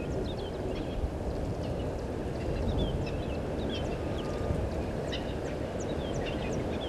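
Birds calling in the bush: many short chirps, quick falling notes and sharp ticks, over a steady low rumble.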